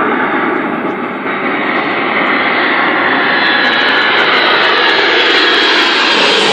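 Boeing 747 airliner's jet engines: a loud rushing noise with a high whine, growing steadily louder and brighter as the jet approaches.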